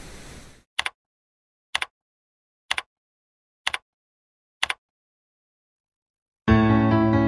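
A hiss of static cuts off, then five sharp double clicks come about a second apart. Piano-led music starts near the end.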